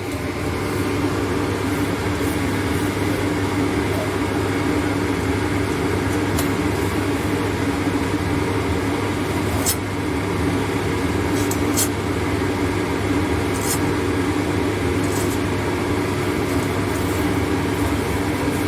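HSS saw blade grinding machine running steadily: a motor and spinning grinding wheel hum while the wheel is fed slowly toward the blade until it just touches. There are a few sharp ticks along the way.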